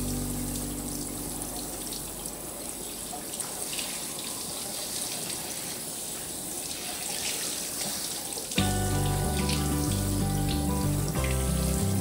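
Kitchen tap running steadily, with the water splashing over a bamboo shoot held in the sink. Background music fades out about a second in and comes back louder about two-thirds of the way through.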